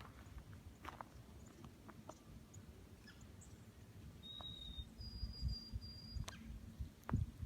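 Faint crunching footsteps in snow, with scattered small crunches and heavier steps near the end. Two thin, high, steady whistle-like tones sound in the middle, the second one higher and longer.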